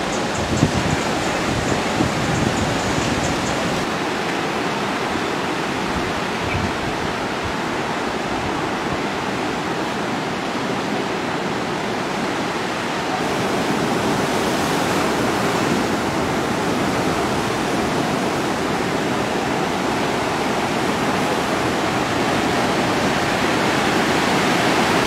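Steady rushing roar of breaking ocean surf, growing slightly louder about halfway through.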